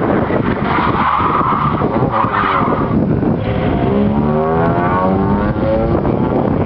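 Ford Fiesta rally car on an autotest: tyres squeal through a turn for about two seconds, then the engine revs up hard as the car accelerates away, its pitch climbing steadily.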